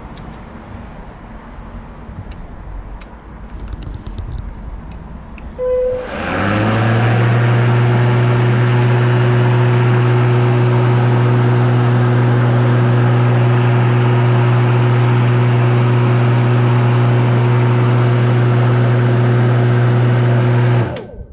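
Makita DLM432 36V cordless lawn mower started after a brief tone about six seconds in: the blade motor spins up within a second to a steady hum and runs for about fifteen seconds, then is switched off and stops abruptly near the end. The freshly sharpened and balanced blade is running smoothly with no vibration.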